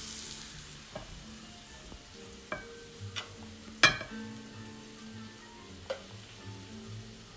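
A metal serving spoon scraping and knocking against a saucepan while scooping thick polenta into a bowl: a few separate clinks, the sharpest a little under four seconds in.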